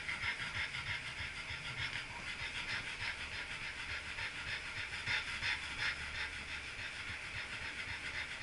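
French bulldog panting steadily in a fast, even rhythm, heard close up from a camera strapped to its back.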